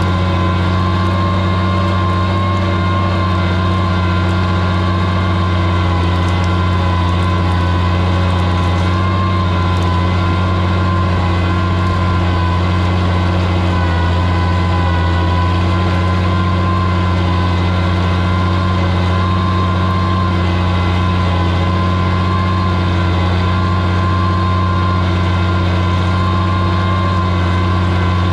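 Oliver 77 tractor's six-cylinder engine running at a steady speed under load, pulling a plow through the soil. The engine note holds constant throughout.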